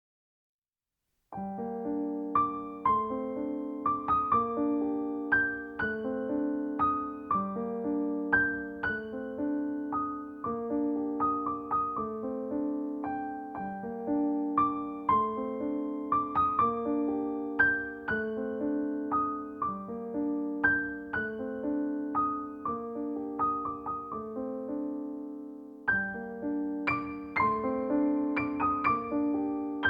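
Soft piano music: a gentle, repeating pattern of notes over sustained lower chords, starting about a second and a half in, with a short pause before the phrase picks up again near the end.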